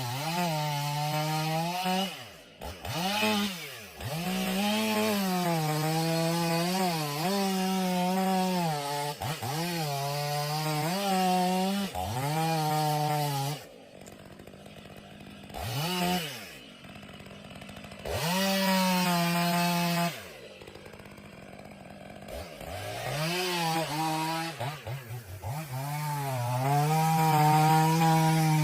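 Chainsaw engine cutting wood, its pitch repeatedly sagging under load and recovering. It drops back to a quieter idle a few times before revving up again.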